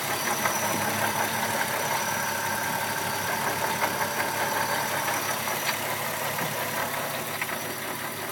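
Volkswagen 12-valve VR6 engine running steadily at idle with a knocking noise that the owner can't account for.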